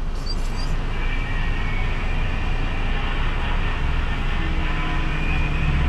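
Car engine idling, heard from inside the cabin: a steady low rumble, with a low hum that grows stronger about four seconds in.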